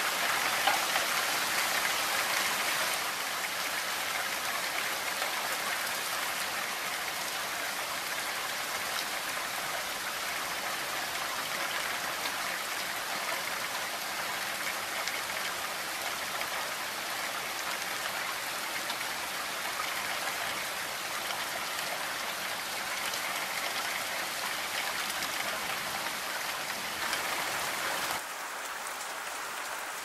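Steady rainfall, an even hiss of many drops. It drops a little quieter near the end.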